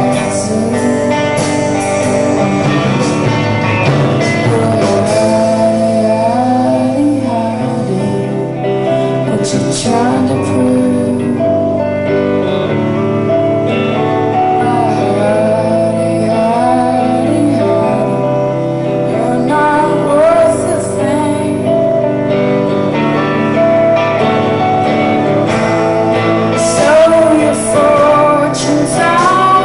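Live rock band playing: a woman singing over electric guitars and drums.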